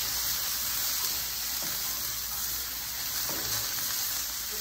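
Onions, garlic, bell peppers and grated ginger sizzling steadily as they fry in a pan, with a couple of faint scrapes of stirring.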